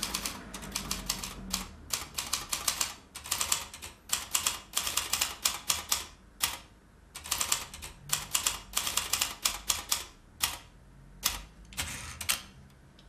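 Typewriter keys clacking in quick runs, broken by a few short pauses.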